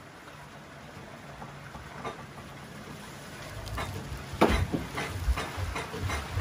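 A low, steady rumble, then from about halfway through a run of irregular knocks and thumps, the loudest a little past the middle.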